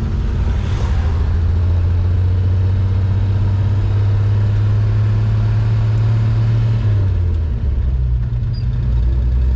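Car engine running on gas from an onboard garbage-fed gasifier, heard from inside the cabin as the car drives off slowly. A steady low engine hum whose pitch steps down about seven seconds in.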